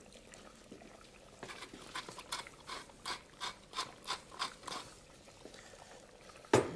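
Lemon half being squeezed and reamed with a fork over a pot of sauce: a run of short, sharp crunching sounds, several a second, for about three seconds, then one louder click near the end.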